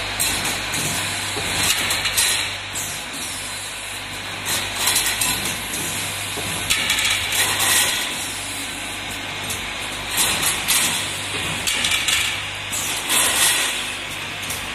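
Automatic mop handle cap threading machine running: a steady low buzz from its vibratory bowl feeders under mechanical clicks and knocks, with short hisses of compressed air from its pneumatic cylinders every two to three seconds.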